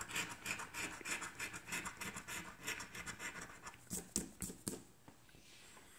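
Scratch-off lottery ticket being scratched, a quick run of short rasping strokes, several a second. The scratching stops about three-quarters of the way through.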